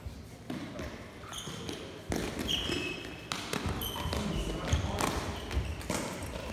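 Sneakers squeaking and thudding on a gym floor during a lábtoll-labda rally, mixed with sharp taps as the ball is kicked. There are several short high squeaks and a string of irregular thuds, with a hall echo.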